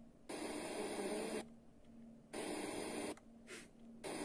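Sony DAV-560 receiver's FM tuner stepping through the band: three bursts of hissy static, about a second each, cut off by muted gaps as it changes frequency. A faint steady hum runs underneath.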